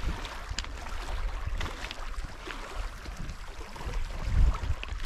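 Wind buffeting the microphone over small waves lapping against a rocky shoreline, with a stronger gust about four seconds in.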